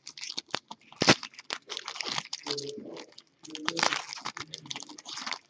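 Hockey card pack wrapper being torn open and handled, with crinkling and crunching of the wrapper and rustling of cards, and one sharp crack about a second in.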